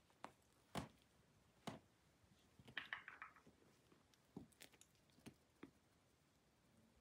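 Near silence broken by faint, scattered soft taps and rustles from a Ragdoll kitten shifting and pawing on a fluffy bath mat, with a brief rustle about three seconds in.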